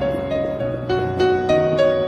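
Background piano music, a slow, gentle melody of held notes.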